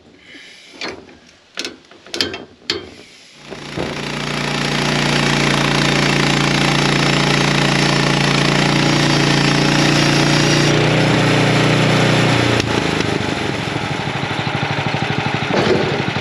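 A few sharp knocks, then a Timberthunder portable band sawmill's engine comes up to speed about three and a half seconds in and runs steadily as the band blade cuts through a spruce log. The engine note drops lower about twelve seconds in.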